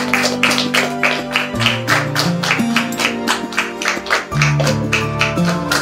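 A group of students clapping in quick, even claps, about five a second, over background music with low held notes that change a few times.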